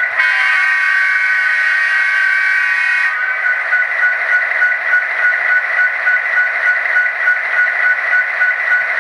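Sound from an N scale locomotive's LokSound Micro DCC sound decoder playing through its tiny speaker: one steady air-horn blast of about three seconds, over the continuous rhythmic sound of the EMD 16-cylinder 710 diesel.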